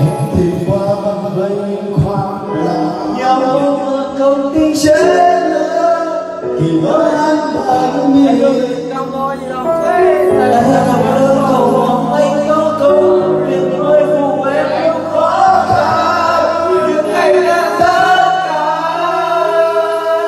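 Men singing karaoke together into microphones over a music backing track, amplified through the room's loudspeakers.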